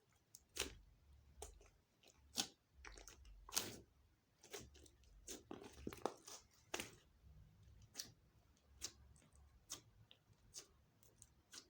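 Slime being pressed and stretched by hand, giving quiet, irregular sticky pops and clicks, about one or two a second, as air pockets burst.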